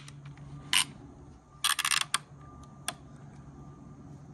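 Sharp clicks and rattles of hard plastic and carbon fiber as a carbon fiber front splitter is pressed and clipped into place on a C7 Corvette front bumper. There is one click about a second in, a quick rattling cluster of clicks around two seconds, and a light tick shortly after.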